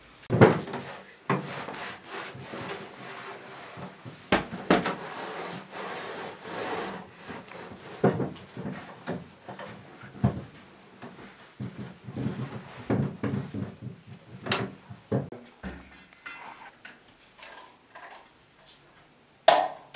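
Household things being handled: irregular knocks, scrapes and rustling as bedding and a wooden chest are moved and shoved into plastered wall niches, and a cloth rubs the wall. The loudest knocks come just after the start and near the end.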